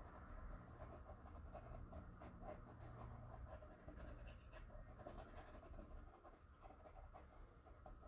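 Faint scratchy rubbing of a paintbrush on stretched canvas, many short strokes in quick succession, as a nearly dry brush works a little white acrylic paint in to make sea foam.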